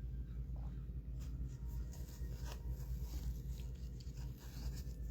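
Trading cards being slid and flipped through by hand, giving faint scattered rustles and light clicks over a steady low hum.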